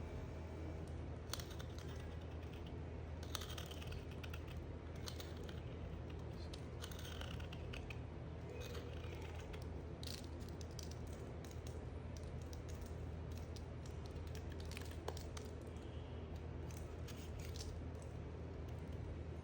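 A knife cutting a bar of dry soap: scattered crisp crunches, short scraping strokes and light clicks, over a steady low hum.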